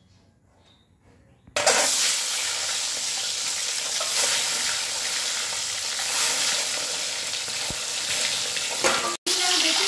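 Boiled eggs dropped into hot oil in a kadai, sizzling and spattering. The sizzle starts suddenly about a second and a half in and then runs on steadily as the eggs fry.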